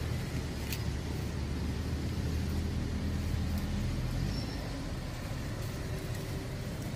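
Low, steady rumble of a motor vehicle's engine, easing off about four seconds in.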